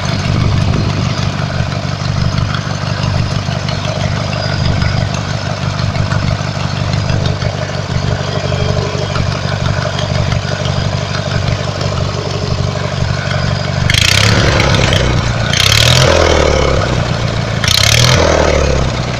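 Riding lawnmower engine running steadily with a deep grumble, then revved three times near the end, its pitch dropping back after each rev.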